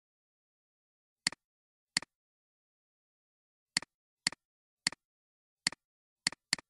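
Computer mouse clicks, eight in about five seconds, at an uneven pace and sometimes in quick pairs. Each is a sharp press-and-release snap, with dead silence between.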